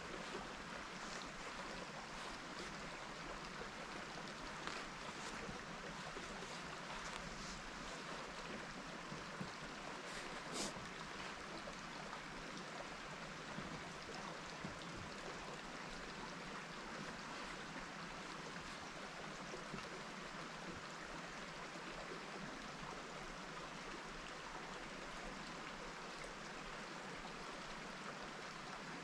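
Steady rushing outdoor background noise with a few faint clicks, the clearest about ten and a half seconds in.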